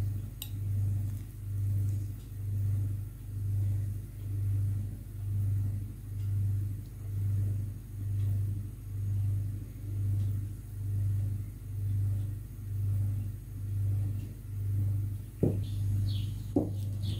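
A low hum that throbs evenly, a little more than once a second, with two short knocks near the end.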